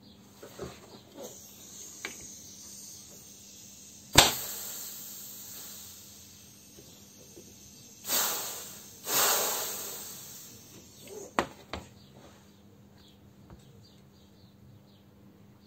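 Workshop handling noises from work on a brake caliper. A single sharp knock comes about four seconds in, then two hissing whooshes about a second apart around the middle, with scattered light clicks before and after.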